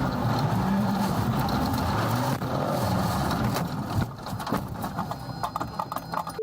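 Rally car engine running hard over a rush of noise, its note rising and falling with the throttle and gear changes. About four seconds in there is a sharp knock and the engine sound falls away, leaving scattered clicks.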